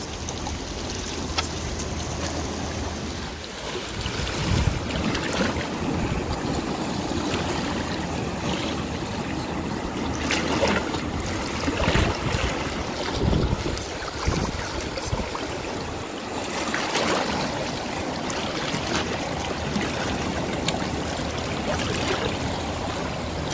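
Wind buffeting the microphone over the wash of sea waves on a rocky shore, a steady noisy rush with irregular low gusts.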